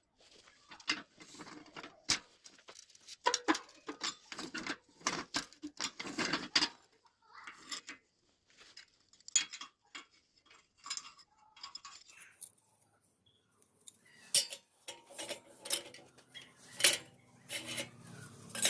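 Irregular clinks and knocks of steel parts being handled, a few ringing briefly.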